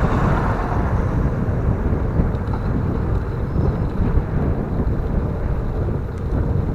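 Steady low rumbling noise of riding a bicycle along a street: wind buffeting the microphone, with road traffic mixed in.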